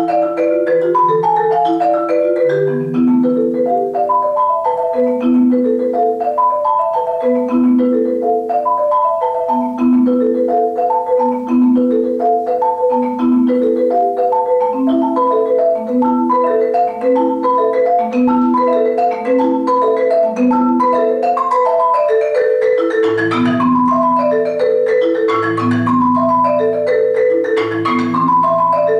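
Two marimbas played with mallets in fast, interlocking repeated patterns of short ringing notes. Lower notes join the pattern near the end.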